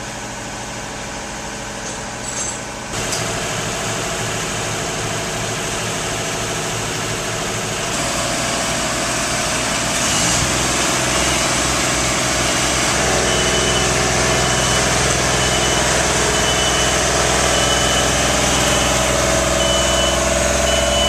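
Engine of site machinery running steadily, with a string of short high beeps, about one a second, starting about halfway through.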